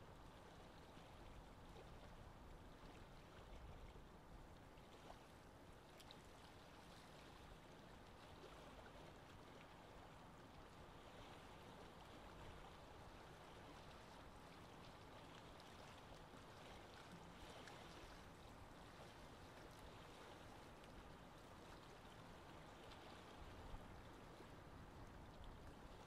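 Faint, steady lake ambience: wind with moving water, an even hiss without distinct events.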